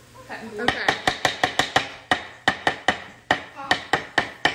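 Metal utensil knocking against a wooden salad bowl as rice is stirred and mixed, in a quick, even run of sharp knocks, about five a second, starting a little under a second in.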